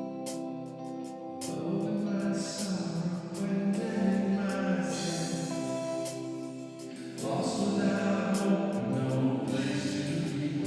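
Live worship band music: sustained chords that change every few seconds, with light cymbal-like ticks, forming the intro before the next worship song is sung.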